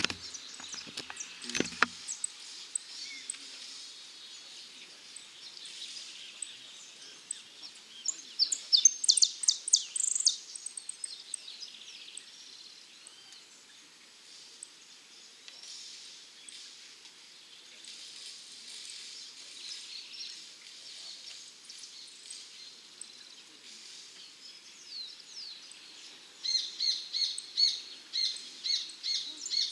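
Saffron finch (dorado) singing: fast trains of high, chirped notes, loudest in a burst about eight to ten seconds in and again in a rhythmic run near the end, with softer song between. A couple of sharp knocks come at the very start.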